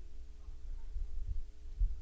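Steady electrical hum from a sound system, with irregular low thumps and rumbles underneath.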